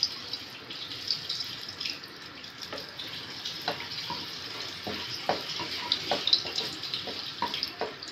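Green cardamom pods and cloves sizzling in hot ghee in a steel kadhai: a steady hiss with scattered sharp pops, which come more often from about three seconds in as the spices crackle and puff up.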